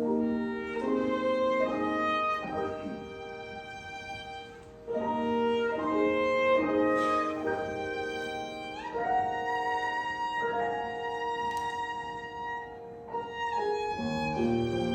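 Instrumental introduction to a hymn: a violin plays a slow, sustained melody over piano accompaniment, and a cello comes in low about a second before the end.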